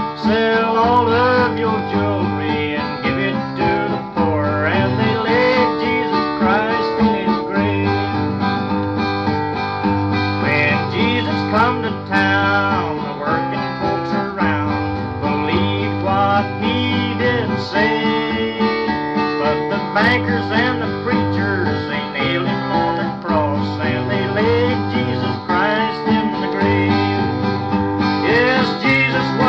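Acoustic guitar music in a country-folk style, strummed throughout, with a melody line that bends in pitch over it.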